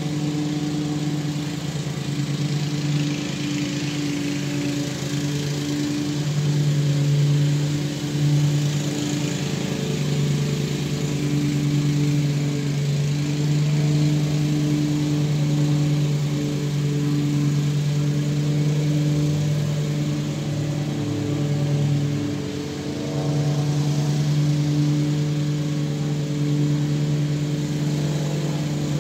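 Honda 270cc, 8.5 hp single-cylinder small engine running steadily at a constant speed.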